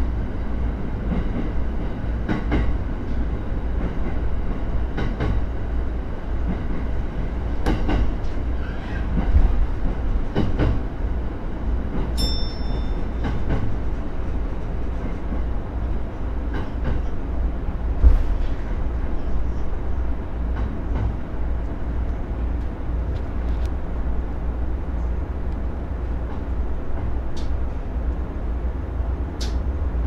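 Jōban Line commuter electric train running, heard from inside the driver's cab: a steady rumble with scattered clicks of the wheels over rail joints. A short high electronic beep sounds about twelve seconds in, and a single thump about eighteen seconds in.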